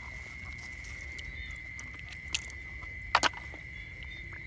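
Steady, high-pitched drone of night insects such as crickets, with a few sharp clicks; the loudest is a quick pair about three seconds in.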